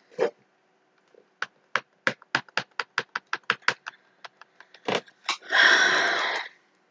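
Graphics tablet pen tapped repeatedly on the tablet surface: a quick, irregular string of sharp clicks, about three or four a second, while strokes fail to register on a malfunctioning tablet. Near the end comes a louder hissing burst lasting about a second.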